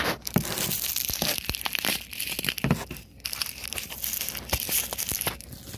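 Plastic bubble-wrap packaging crinkling and crackling as it is handled to unwrap a new ambient temperature sensor, with a brief lull about three seconds in.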